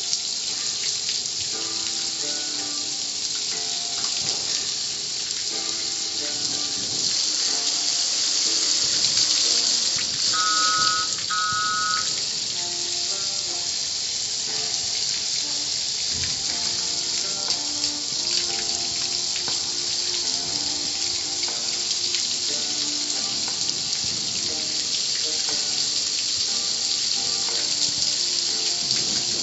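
Car wash water jets spraying steadily, an even hiss, with music playing underneath.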